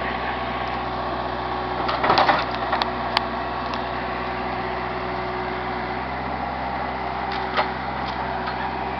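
Backhoe's diesel engine running steadily, with a cluster of sharp knocks and crunches about two to three seconds in and one more knock about seven and a half seconds in as the van is struck.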